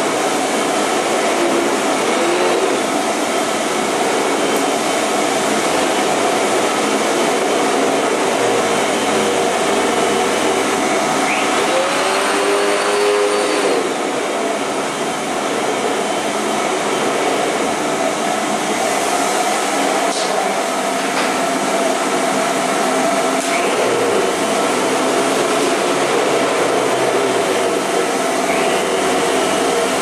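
Vacuum cleaner running steadily: a loud, even rush of air and motor noise. Now and then a faint whine bends up in pitch and back down, a few times.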